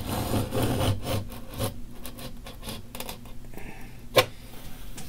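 Utility knife blade scoring a board along a metal square ruler: slow scraping strokes with small ticks as the blade drags through the groove, and one sharp click about four seconds in.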